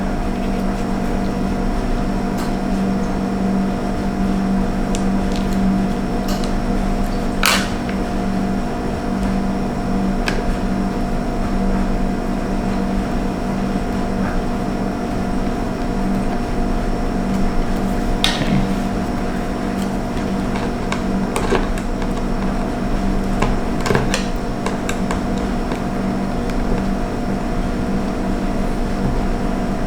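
Steady machine hum, like a fan or air conditioner running, with a few scattered light clicks.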